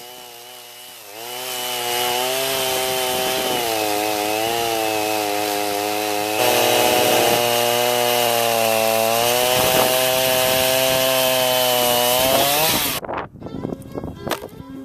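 Gas chainsaw cutting into the end of a Douglas fir log: it speeds up about a second in and runs under load, its pitch dipping and rising as it bites into the wood. It cuts off near the end, followed by a few sharp knocks on wood.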